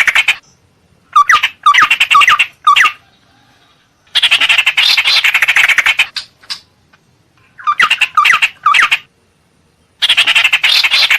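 Ciung air (tit-babbler) calls as played from a bird-lure recording. Loud bursts of rapid harsh chattering alternate with runs of short, downward-hooked notes, in a repeating cycle: notes about a second in, chatter around four seconds, notes again around eight seconds, and chatter near the end.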